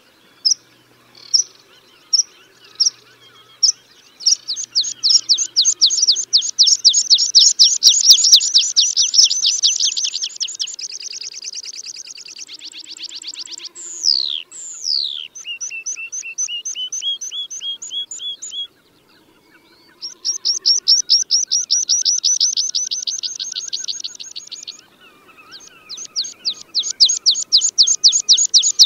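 Tree pipit song: a few spaced single high notes, then long fast trills, with two steep downward-sweeping notes about halfway through. After a short silence the trilled phrases start again. This is a recorded song used as a hunting lure.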